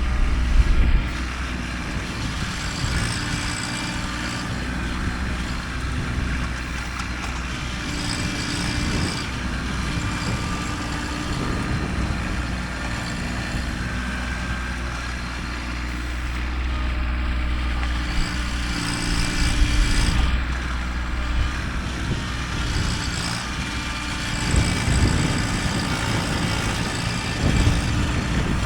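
Kubota tractor's diesel engine running steadily while doing dirt work, its level swelling and easing a little as it goes.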